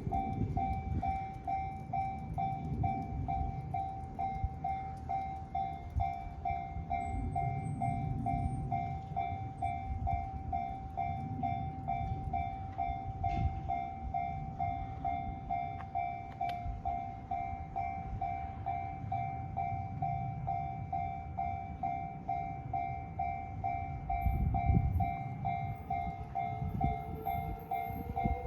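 Japanese level-crossing warning bell ringing a rapid, even, repeating ding throughout, over the low rumble of a train passing the crossing.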